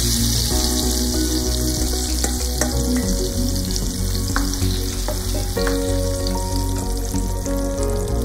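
Mango pulp and juice sizzling in hot oil with a mustard-seed and asafoetida tempering in a nonstick frying pan, stirred with a spatula, over steady background music.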